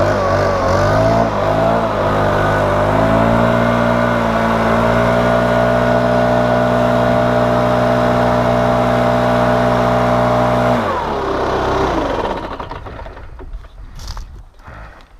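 Small two-stroke gas leaf blower running with the throttle varied, then held steady, blowing sawdust off the top of a log. It shuts off about eleven seconds in and winds down, followed by a few light clicks and knocks.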